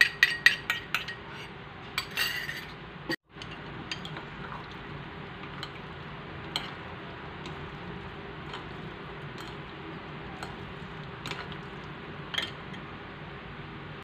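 A metal spoon taps and scrapes against a ceramic dish and bowl in a quick run of clinks as minced lemongrass and garlic are knocked in. After a brief scrape, the sound drops to soft mixing, with a few light clicks of chopsticks and spoon against the bowl as the pork is worked through the marinade.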